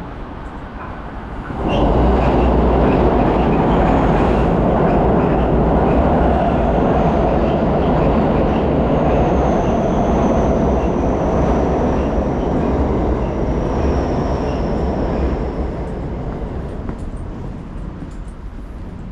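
A train passing close by. Its running noise comes in suddenly about two seconds in, holds steady, and fades over the last few seconds, with a thin high whine partway through.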